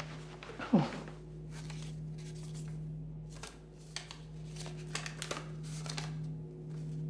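Papers being handled: a short falling swish about a second in, the loudest moment, then a run of crisp rustles and crinkles as sheets are unfolded and leafed through. A steady low hum runs underneath.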